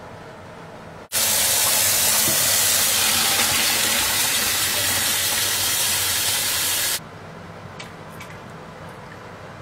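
Kitchen tap water running hard into a plastic colander in a stainless steel sink, a loud steady rush that starts and stops abruptly. After it come a few faint clicks.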